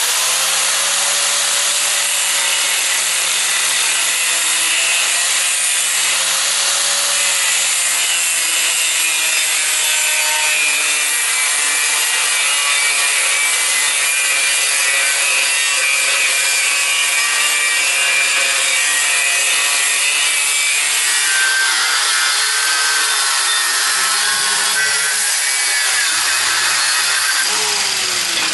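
Angle grinder running under load, its disc scoring a cut line in metal plate: a loud, steady hiss with the motor's pitch wavering as the pressure on the disc changes.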